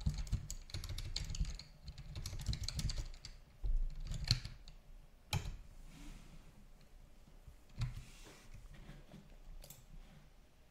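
Typing on a computer keyboard: a fast run of keystrokes over the first few seconds, then a few separate clicks.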